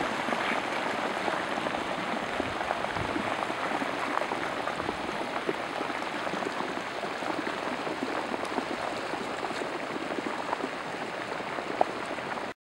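Shallow flash-flood water rushing down a street in a steady hiss, the runoff from a thunderstorm pouring off the desert watershed.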